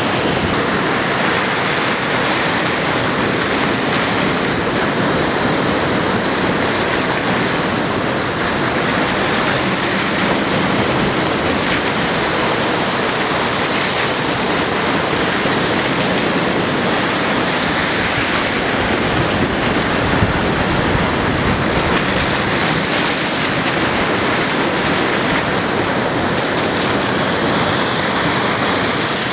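Choppy surf breaking and foaming, a loud steady rush of water with no clear pauses between waves.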